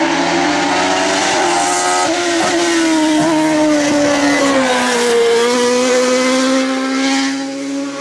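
Open-cockpit sports prototype race car's engine running hard through a hairpin. The note sags about five seconds in, then holds steady.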